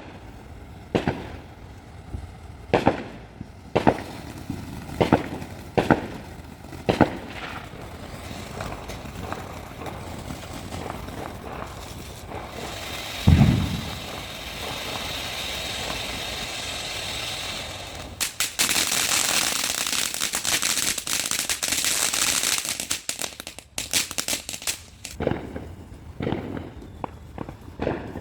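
Consumer fireworks going off: sharp pops about once a second, then a steady hissing spray. Partway through the spray comes one loud low thump, and the spray turns into several seconds of dense, louder crackling. More scattered pops follow near the end.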